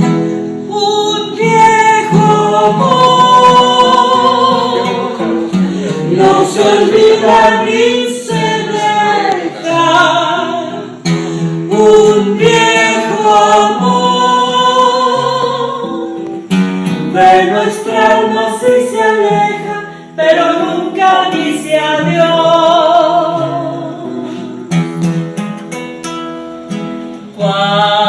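A woman singing a Spanish-language song with long held, wavering notes, accompanied by an acoustic guitar.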